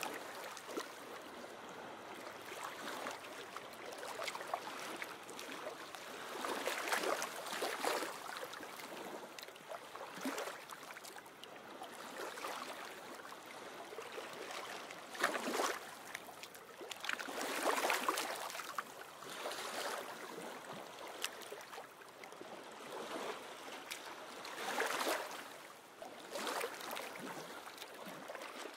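Small waves lapping and splashing at the shore: a steady wash of water that swells and falls back every few seconds.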